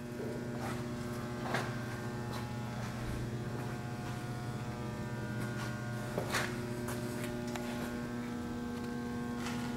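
Steady electrical hum with a low tone and its overtones, at an even level, with a few faint clicks and taps scattered through it.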